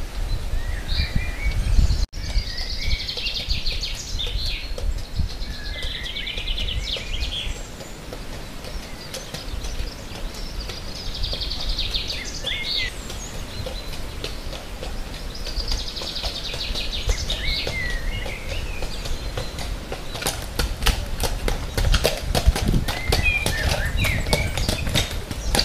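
Songbirds singing in short repeated phrases over a steady low rumble. About three-quarters of the way in, a barge horse's hooves start clip-clopping on the gravel towpath as it comes close.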